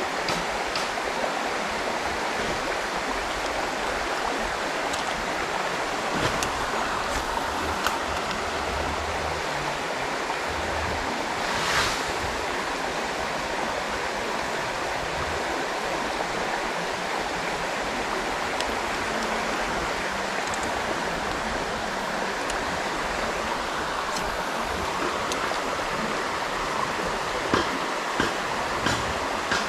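Shallow river water running over rocks, a steady rushing. A brief louder hiss comes about twelve seconds in, and a few small clicks near the end.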